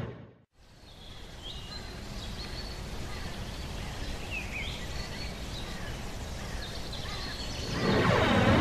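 Steady outdoor ambience of soft wind-like noise with faint, high bird chirps scattered through it. About a second before the end, a louder swelling sound with swooping pitch begins.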